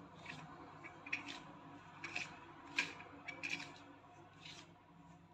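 A hand rubbing ghee into wheat flour in a steel plate: faint, irregular short scrapes and rustles as fingers and flour drag against the steel, about a dozen in all.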